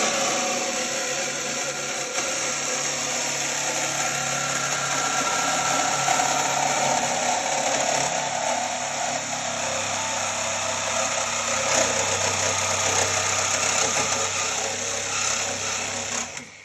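Corded DeWalt reciprocating saw running steadily as it cuts through the car's inner wheel-well sheet metal; it shuts off abruptly right at the end.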